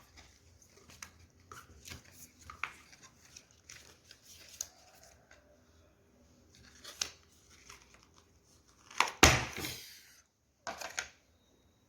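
Unboxing packaging being handled: scattered light rustles and clicks, then a loud rustling burst about nine seconds in that lasts about a second, and a shorter one just after.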